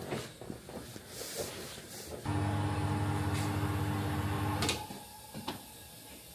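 Tyre-changing machine's turntable motor running with a steady hum for about two and a half seconds, starting about two seconds in and stopping abruptly, while a motorcycle tyre is being refitted on the rim. Small clicks and knocks of tools on the wheel come before and after it.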